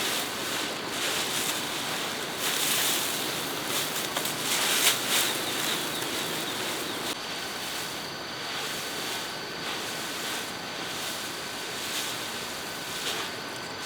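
Steady wind-like rustling noise, with louder rustles about three and five seconds in.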